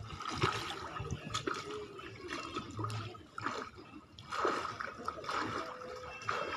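Pool water splashing and sloshing as a swimmer strokes and kicks on his back, coming in irregular surges about once a second.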